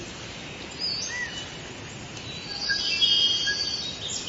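Several birds chirping over a steady outdoor hiss, with a louder, quick trilling call about three seconds in.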